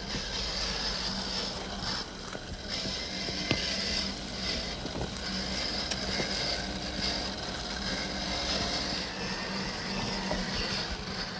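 Axial SCX10 III Gladiator RC crawler's electric motor and geared drivetrain whirring steadily, with a few sharp clicks.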